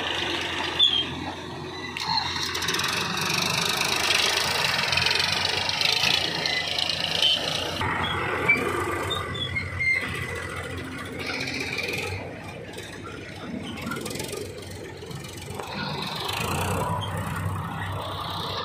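Diesel engines of a backhoe loader and a farm tractor running under load while mud is loaded and hauled. The sound changes abruptly several times.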